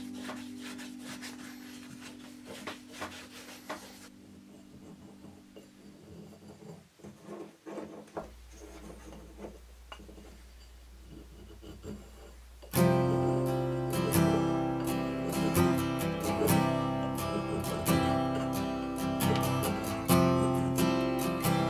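Background music fades out, leaving faint irregular rubbing strokes of a sanding block worked against a steel hatchet head; a little past halfway, strummed acoustic guitar music comes in and is the loudest sound from then on.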